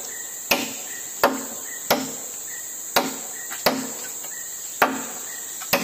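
Repeated blows of a hand tool striking wood, about seven strikes at an unhurried, fairly even pace, each a sharp knock with a short low thud. A steady high-pitched insect chorus drones underneath.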